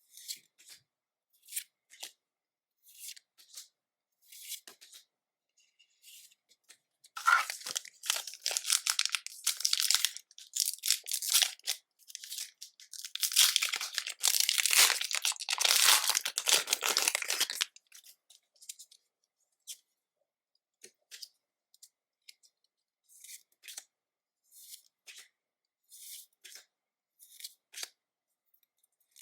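Foil Pokémon booster pack wrapper being torn open and crinkled, in two loud stretches of about four seconds each in the middle. Before and after them come soft, sparse taps and slides of trading cards being handled.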